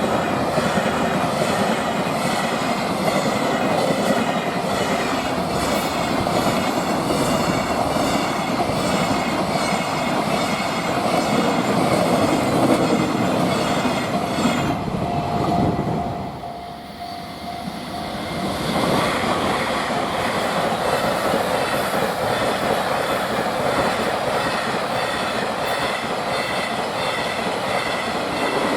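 Freight trains passing close by, wagon wheels clattering in a steady rhythm over the rail joints. About 16 s in, the sound drops briefly as one train clears, then a second freight train comes through.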